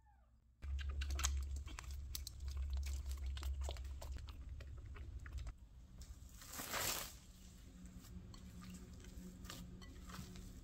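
Metal spoon scraping and mashing a sticky date and sesame seed filling in a glass bowl, a quick run of small clicks and scrapes. About seven seconds in, a short crinkling swish as plastic wrap is pulled off a bowl of risen yeast dough, then softer sounds of hands pressing down the dough.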